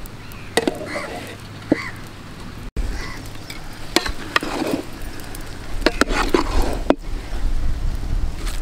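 A long metal spoon scraping and knocking against a large metal cooking pot as cooked noodles are stirred and lifted, in a handful of sharp scrapes and clinks.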